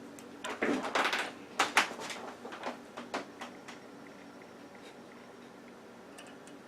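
A run of small clicks and rustles from test leads and clip-on grabbers being handled and attached to a circuit board's test point, busiest in the first two seconds and dying away past the middle.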